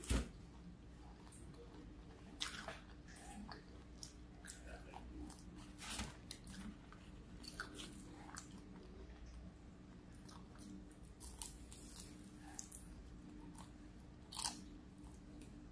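Close-up biting, crunching and chewing of a fried tortilla-style egg roll, with scattered crisp crunches; the sharpest bites come right at the start and again near the end.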